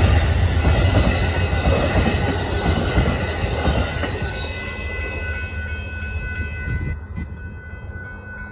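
Amtrak Texas Eagle passenger train rolling past a grade crossing: the rumble and clatter of its bi-level Superliner cars' wheels on the rails, fading as the last car clears and dying away by about seven seconds in. A steady high whine runs underneath.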